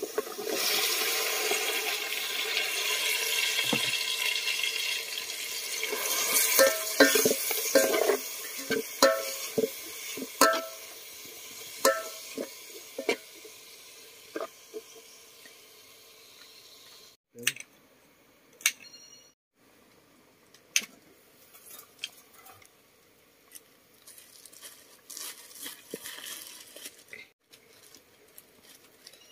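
Camp cooking in a metal pot: a steady sizzling hiss, then a run of sharp ringing clinks of a utensil against the pot, and later only faint scattered clicks.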